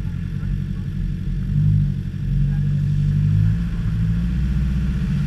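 Land Rover Discovery engine running at low revs off-road, its note rising and falling a few times as the throttle is worked.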